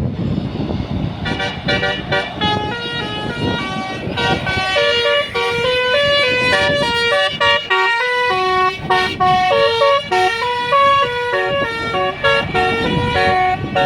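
Indonesian bus 'telolet' (basuri) horn playing a quick tune of stepped notes, starting about a second in, over the low rumble of a bus.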